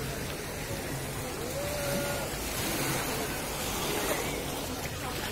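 Sea surf washing steadily onto a sandy beach, with faint distant voices of people in the water.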